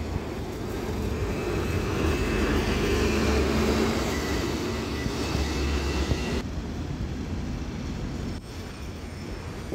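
Double-decker bus engine running as the bus drives past close by, with a faint high whine, growing louder to a peak partway through. The level then falls off suddenly after about six and a half seconds.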